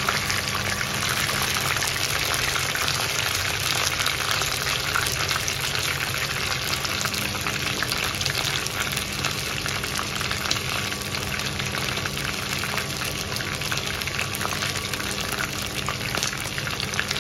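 Chicken drumsticks frying in bubbling oil in a pan: a steady, dense sizzle with many small crackles.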